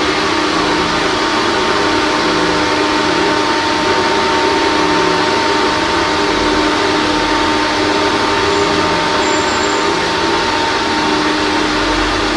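Bathroom exhaust fan running steadily: an even rush of air with a constant hum under it.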